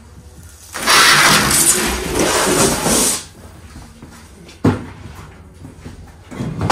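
A large sheet of cardboard dragged across and lifted off a concrete floor, a loud rustling scrape lasting about two seconds. This is followed by two short knocks, one about a second and a half after the scrape and one near the end.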